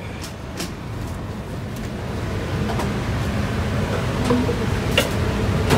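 Steady rumble of a restaurant kitchen's extractor hood fan, growing louder, with a few sharp clinks of containers being handled.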